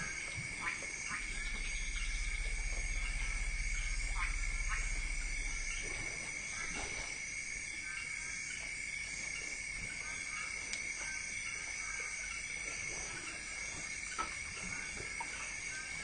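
Insects in a steady high-pitched chorus, with a low forest elephant rumble for about five seconds, starting about a second in. A few faint clicks and knocks are scattered through.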